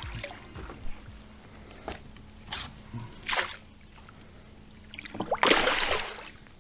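Water sounds at a kayak: a few light splashes and drips, then a louder, longer splash about five seconds in.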